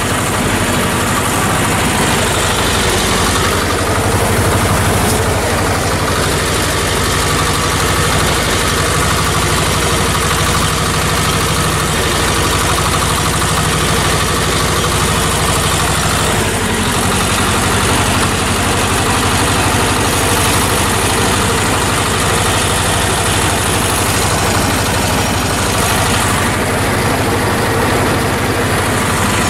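Władimirec T-25 tractor's two-cylinder air-cooled diesel engine running steadily under load as the tractor drives through the crop pulling a field sprayer, heard from the cabless driver's seat.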